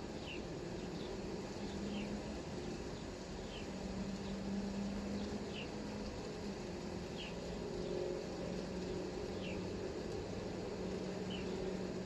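Light rain falling steadily, with a bird repeating one short, falling chirp about every second and a half to two seconds. A low steady hum runs underneath.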